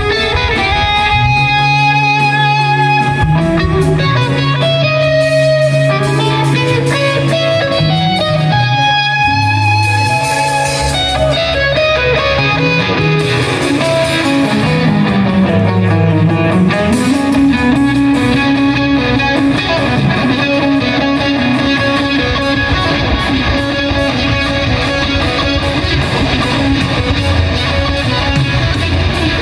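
Amplified electric guitar played live on stage, a slow passage of held notes and chords. Midway through, the pitch slides down and then back up.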